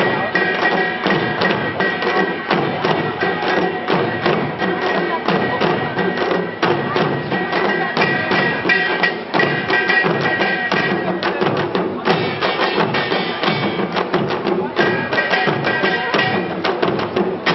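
A group of janggu, Korean hourglass drums, playing a fast, dense rhythm, over long held tones of accompanying music that drop out briefly past the middle.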